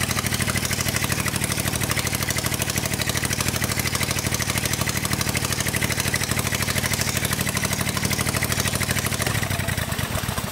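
Honda GX670 670cc air-cooled V-twin petrol engine running steadily on a test bench, its firing pulses even. In the last second its note breaks up as it begins to stop.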